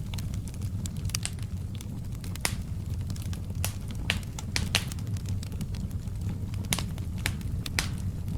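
Wood fire crackling: irregular sharp pops and snaps, a few every second, over a steady low rumble of burning.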